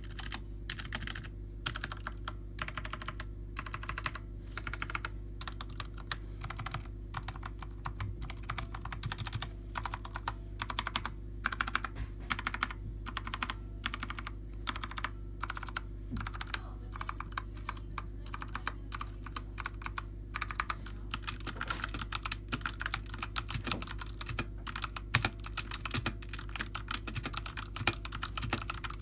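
Continuous fast typing on a Redragon K530 mechanical keyboard with tactile brown switches, a dense stream of irregular key clacks over a steady low hum.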